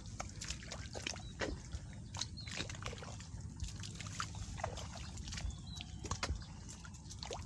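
Footsteps on the muddy ground of a mangrove path, mixed with mangrove branches and leaves brushing against the walkers. The sound is an irregular run of soft wet clicks and rustles.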